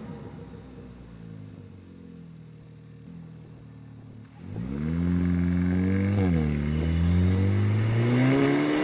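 Kia Forte GT's 1.6-litre turbocharged four-cylinder engine running quietly and steadily for about four seconds. It then rises sharply in level, its pitch climbing under throttle, dipping briefly partway, then climbing again while a hiss builds near the end.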